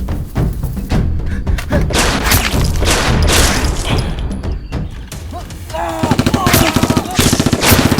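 Rapid gunfire sound effects from a staged blaster fight, shot after shot over background music. About six seconds in the firing turns into a fast automatic burst, with raised voices over it.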